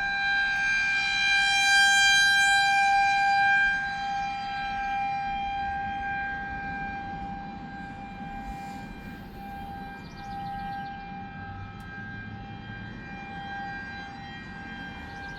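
Outdoor civil defense warning siren sounding one steady, unwavering tone during a siren test. It is loudest for the first few seconds, then falls back and carries on at a lower level.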